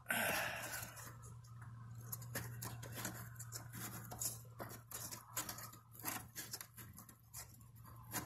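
Fingers picking and scraping at a small stick lodged under the drive belt on a pulley of a Husqvarna AWD push mower, amid caked dried grass: a long run of small clicks and scratches, with a louder rustle at the start. A faint steady low hum runs underneath.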